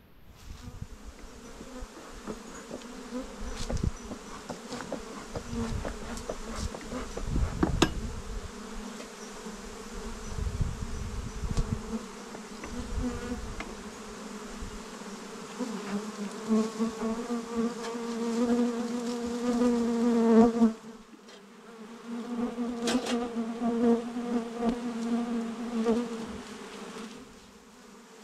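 A swarm of bees buzzing in a steady, droning hum that grows louder about halfway through, breaks off briefly, then returns. A few knocks and low thumps come in the first half.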